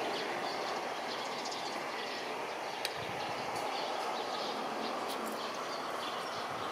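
Steady outdoor city background noise, an even rumble and hiss, with faint high chirps and a single small tick about three seconds in.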